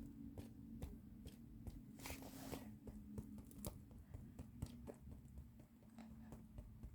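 Faint, scattered clicks and light rustles of small toys being handled, over a faint steady low hum.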